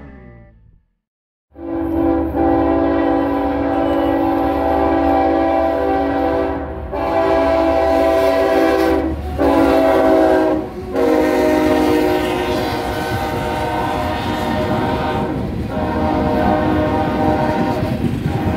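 A diesel freight locomotive's air horn sounds in long blasts broken by short gaps, starting about a second and a half in. After that the train rolls past with a steady rumble of wheels on rail as covered hopper cars go by.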